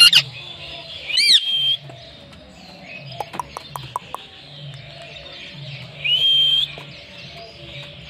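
Indian ringneck parrot calling: a sharp screech right at the start, a rising whistled call about a second in, a quick run of clicks around three to four seconds, and another rising whistled call about six seconds in. Under it all is a steady high-pitched background hiss.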